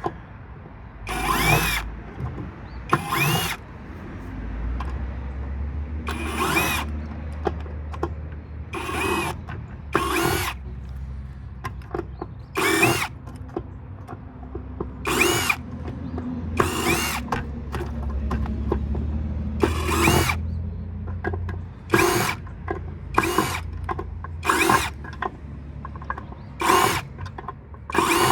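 Power drill fitted with a small Phillips bit, run in about fifteen short bursts of under a second each, its motor whining up at the start of every burst: screws being driven out one after another.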